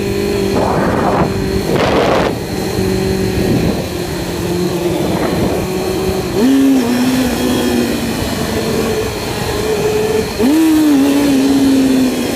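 Yamaha YZF-R6 sport bike engine revved hard in two short throttle bursts in the first couple of seconds as the front wheel lifts. It then runs along at a steady pitch, with quick rises in revs about halfway through and again near the end.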